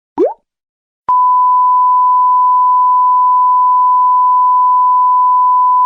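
A short upward-gliding sound effect, then, about a second in, a loud steady single-pitch beep tone held without a break: the standard censor bleep.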